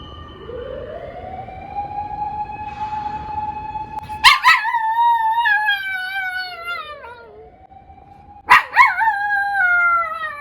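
A toy poodle howling along to a wailing emergency siren. The siren rises and holds in pitch, and the dog breaks in twice, about four and eight and a half seconds in, each time with a loud sudden start and a wavering howl that slides down in pitch.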